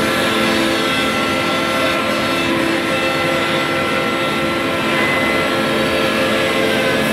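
Woodmaster four-axis, 16-tool CNC machining centre running, its router spindles cutting wooden chair legs: a loud, steady whine of several held tones over a dense cutting noise.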